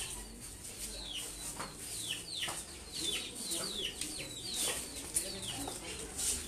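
Birds chirping: a string of short falling chirps, several a second.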